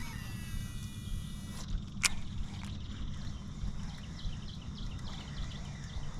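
A cast with a fishing rod: line whirs off the reel for about a second and a half, then a sharp click about two seconds in, over a steady low rumble.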